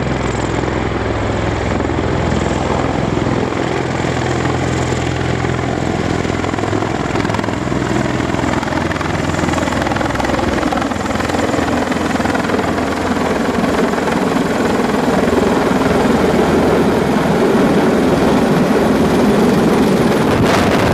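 Bell Boeing MV-22 Osprey tiltrotor flying low overhead in helicopter mode on its landing approach: a steady loud drone of its twin rotors and engines with low steady tones underneath, growing louder over the last few seconds as it nears. Right at the end, rotor wash starts buffeting the microphone.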